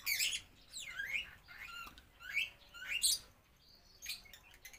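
Small birds chirping in a run of short, sliding calls, about five or six of them, mixed with close-up wet chewing and mouth sounds of eating rice by hand.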